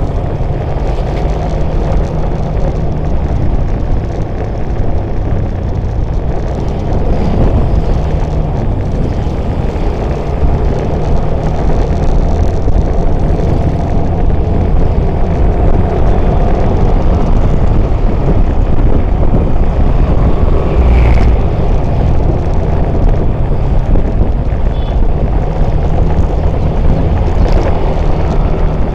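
Steady low rumble of wind on the microphone on a moving motorcycle, with small motorcycle and scooter engines running underneath in traffic.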